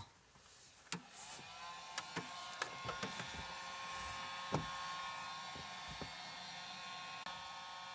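Electric heat gun switched on about a second in, its fan spinning up into a steady whirring hum with a high whine, with a few light clicks and taps over the first seconds. It is heating a car sticker's adhesive to loosen it.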